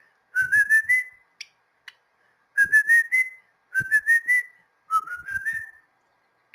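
Cockatiel whistling a short phrase of about five quick notes stepping upward in pitch, repeated four times with brief pauses between.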